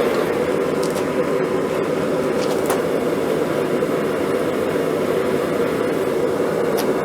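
Steady roar of a lit blacksmith's forge running, with a few faint light clicks.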